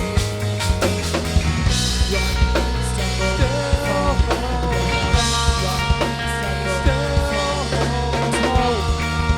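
Rock band playing live: an instrumental passage with a drum kit and a steady bass under a lead melody line that bends in pitch.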